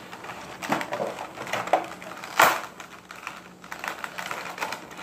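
Fingerboard toy packaging handled by hand: a run of small crinkles and clicks, with one sharp, louder crack about two and a half seconds in.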